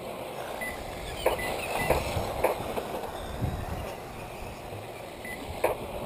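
Radio-controlled race cars running on a dirt oval, with a few sharp knocks scattered through.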